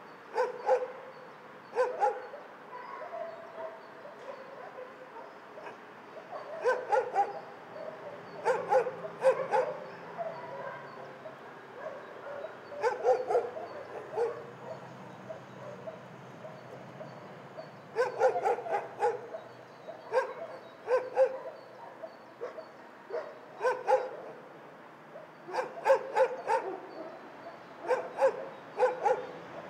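Several shelter dogs barking in kennels, in irregular bursts of a few barks at a time every couple of seconds, with a lower background of other dogs between the bursts.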